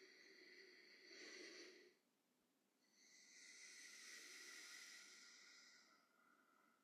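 Near silence with faint breathing: one breath fades out about two seconds in, and a longer one swells and fades from about three to six seconds in.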